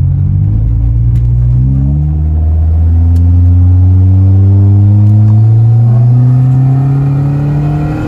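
Turbocharged Perodua Myvi four-cylinder engine, fitted with a bolt-on Subaru TD04L turbo, accelerating hard, heard from inside the cabin: its note climbs steadily in pitch, and the engine eases off near the end.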